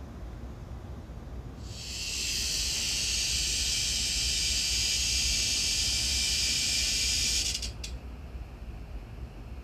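A cicada calling: a sudden, loud, steady buzz starting about two seconds in, held for about six seconds, then cutting off abruptly, with a couple of faint clicks just after.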